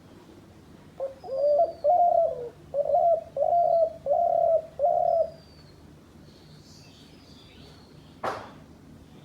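A dove cooing: a run of about six low coos in quick succession over some four seconds, then a single sharp click near the end. Faint, high, short chirps of a small bird recur in the background.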